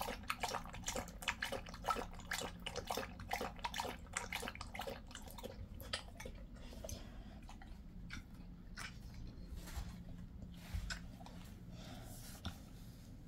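A Jindo dog lapping water from a stainless steel bowl in a quick, steady rhythm. About six seconds in the lapping stops and gives way to a few scattered licks and small mouth clicks.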